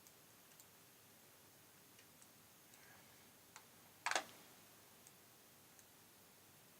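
Faint, scattered clicks of a computer mouse over near-silent room tone, with one louder click about four seconds in.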